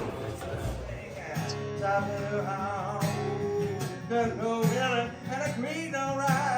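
Background country music with acoustic guitar coming in about a second in, after a moment of low outdoor rumble.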